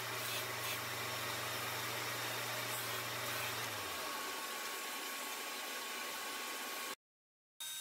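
Bench disc sander's motor running with a steady low hum under a hiss. The hum stops about four seconds in as the sander is switched off and the disc spins down, and the remaining hiss cuts off abruptly near the end.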